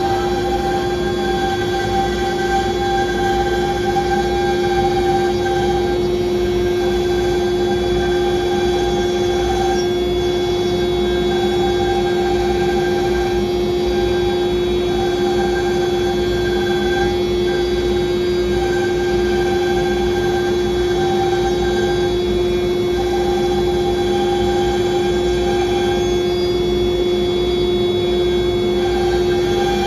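CNC router spindle running steadily with a constant whine while the bit cuts grooves into a wooden sheet, with a higher tone that comes and goes every second or two.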